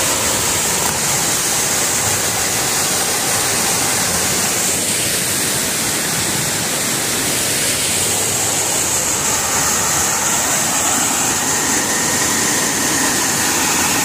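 Small waterfall cascading over rocks into a shallow pool: a steady rush of falling water.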